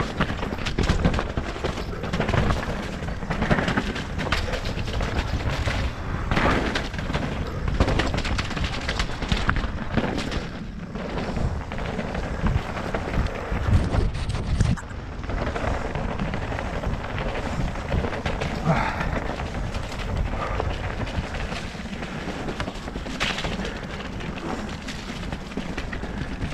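Nukeproof Mega RS mountain bike descending a wet, rocky trail, heard from a helmet camera: constant wind rumble on the microphone, with frequent sharp knocks and clatter as the tyres and bike strike rocks and roots.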